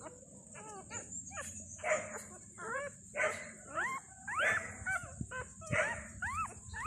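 Newborn puppies squeaking and whining in short, high calls that rise and fall in pitch, about one or two a second, with a few rougher cries among them.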